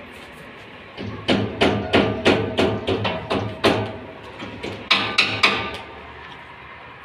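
Hammer blows, a run of about a dozen sharp strikes at roughly three a second with a short lull partway through, each with a brief ring, while an iron window grille is being fixed in place.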